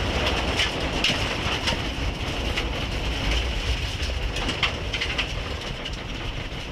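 Cabin noise of a Mitsubishi Lancer Evo IX rally car on a gravel road: a low rumble of its turbocharged four-cylinder engine and tyres, with scattered sharp ticks and rattles. The rumble eases off gradually as the car slows after the stage finish.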